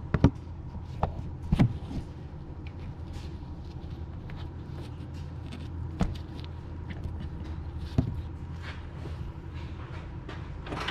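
A few sharp knocks and clicks, several close together at the start and single ones about 6 and 8 seconds in, as a camera is handled and set in place. Under them runs a steady low hum.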